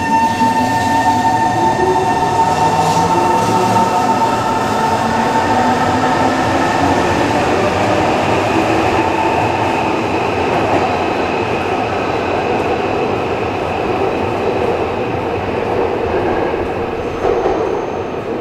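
Tokyo Metro 03 series subway train accelerating out of the station. Its traction motors whine, climbing in pitch over the first few seconds, under a continuous rumble of wheels on the rails. The sound eases slightly as the train pulls away.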